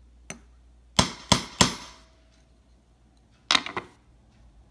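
Light hammer taps on a flat-faced staking punch, flattening the rivet that holds a new balance staff in a watch balance wheel. Three sharp metallic taps about a third of a second apart come about a second in, then a quick group of two or three near the end.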